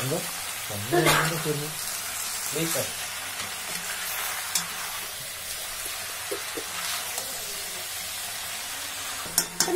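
Chopped chicken, onions and dried red chillies sizzling steadily in a black kadai as a steel ladle stirs through them, with a few short scrapes of the ladle against the pan.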